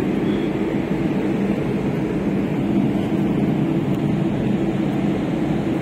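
Steady low drone of a ship's machinery, unchanging in level, heard on the open deck.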